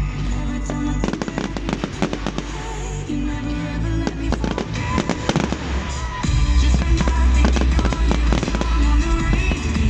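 A fireworks display: many sharp bangs and crackles in quick succession, thickest in the first six seconds or so, over loud music with a heavy bass.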